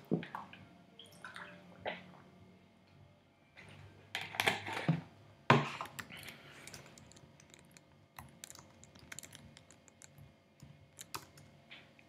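Typing on a computer keyboard: scattered light key clicks in short runs, with a few louder noises about four to five and a half seconds in.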